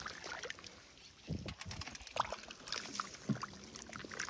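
Hands sloshing and splashing in shallow muddy water, with scattered small clicks and two soft thumps.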